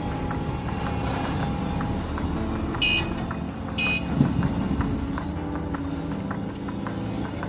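Doosan excavator's diesel engine running under load as it swings and dumps a bucket of sand and soil into a tipper truck. Two short high beeps about a second apart come near the middle, followed by a heavy thud as the load drops into the truck bed.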